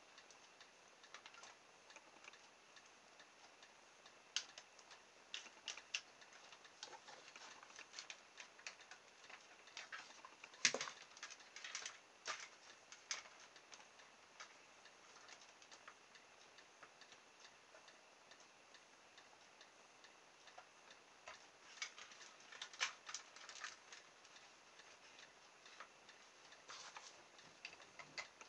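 Scattered faint clicks and taps of small plastic parts being handled: an LED light pack and its wires being fitted to a toy RC car's plastic chassis, with one louder knock about ten seconds in.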